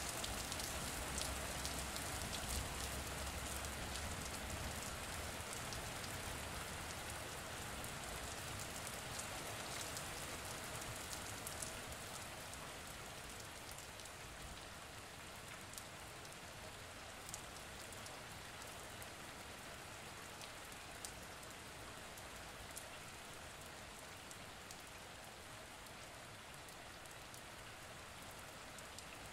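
A steady, rain-like hiss with scattered small crackles, slowly fading over the first half and then holding at a low level.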